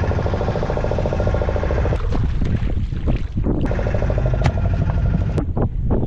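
Fishing boat's engine running steadily, a continuous low rumble.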